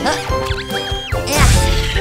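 Cartoon background music laid with comic sound effects: quick up-and-down pitch swoops, a short held high beep, and a loud hit about one and a half seconds in.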